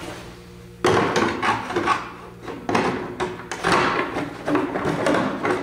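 Plastic body shell of a 1/7-scale RC monster truck being handled and fitted down onto its chassis. A run of rubbing, scraping and clattering knocks starts about a second in.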